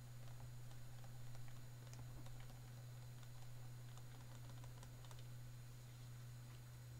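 Faint light taps and scratches of a stylus writing on a tablet, over a steady low electrical hum.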